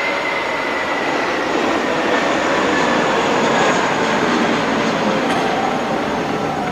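Loud rushing roar of a passing vehicle, swelling and easing off, with a faint whine that slowly falls in pitch.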